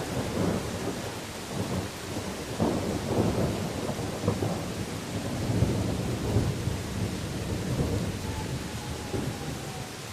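A long roll of thunder rumbling over steady rain. The rumble swells and fades several times and dies away near the end, leaving the rain's even hiss.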